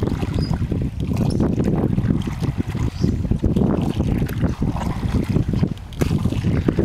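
Wind buffeting the microphone in a steady low rumble, with water splashing and sloshing around a wooden oar worked in the river at a log raft's edge.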